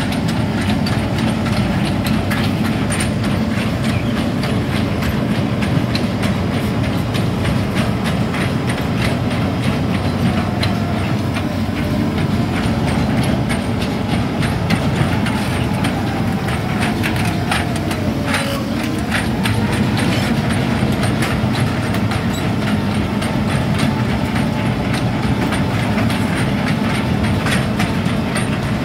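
Hitachi Zaxis 210F amphibious excavator travelling on its steel pontoon tracks: the diesel engine runs steadily under a continuous rattle and clank of the track chains and cleats.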